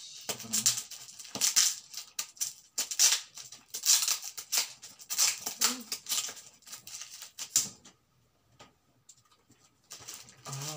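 Plastic wrapping crinkling and rustling in irregular bursts as a wrapped gift is handled and opened, stopping about eight seconds in.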